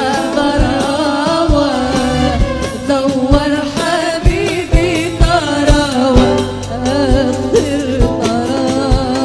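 Live Moroccan wedding band music: a wavering violin melody over keyboard, with singing and a steady drum beat of about two beats a second.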